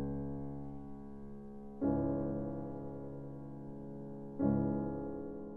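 Background piano music: sustained chords, with a new chord struck about two seconds in and another about four and a half seconds in, each dying away slowly.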